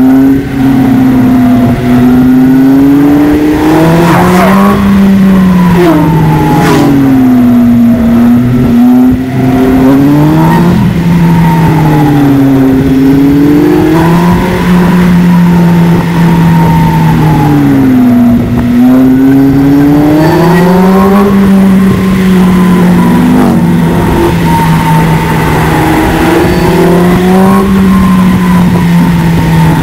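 Polaris Slingshot's engine running under load, its pitch rising and falling every few seconds as it accelerates and eases off through a run of bends.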